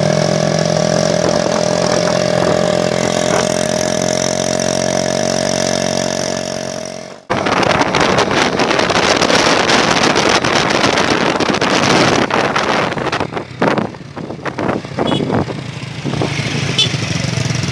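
A motor vehicle engine running steadily, its pitch creeping up slightly; about seven seconds in it cuts off suddenly and loud rushing noise takes over, thinning and coming and going near the end.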